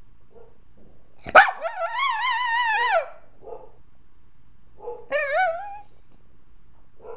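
A small terrier whining in fear at fireworks. A sharp crack about a second in runs straight into a long, wavering, high-pitched whine. Faint short whimpers follow, then a second, shorter rising whine about five seconds in.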